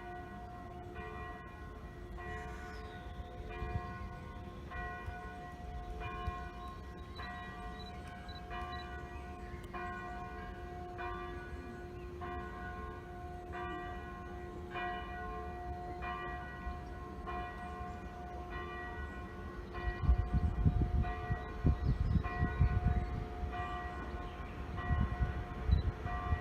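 Church bell tolling slowly and evenly, about one stroke every 1.2 seconds, each stroke ringing on under the next. In the last six seconds a deep rumble comes in under the bell in uneven gusts.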